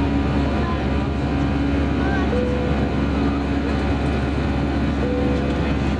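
Cabin noise of an Airbus A319-111 climbing after takeoff: the CFM56 turbofan engines and the airflow make a steady low rush with several steady hums over it.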